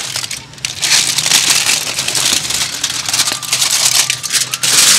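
Aluminium foil pack crinkling and rustling in repeated bursts as fries are lifted out of it with tongs.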